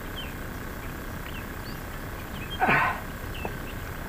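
A man's short strained grunt, falling in pitch, about two and a half seconds in, from the effort of hoisting a heavy catfish in a landing net on a hand scale. Faint bird chirps come and go over a steady outdoor background.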